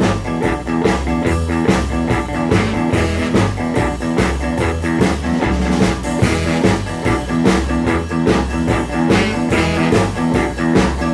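Blues rock-and-roll band playing the instrumental intro of a song: electric guitar over bass and drums with a steady beat.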